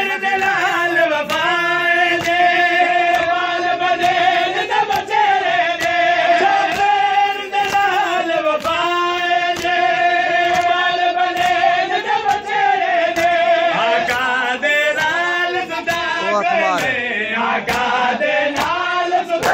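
Male voices chanting a Punjabi nauha in long held notes that slide from pitch to pitch. Under them runs the steady, evenly spaced slap of open hands beating on bare chests (matam) by the crowd.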